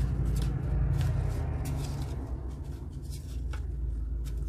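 Paper cash envelopes being flipped through by hand in a thick stack, a quick run of soft paper rustles and flicks, over a low steady hum.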